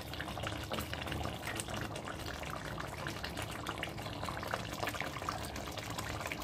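Thick chicken curry gravy simmering in a pan: a steady bubbling with many small pops.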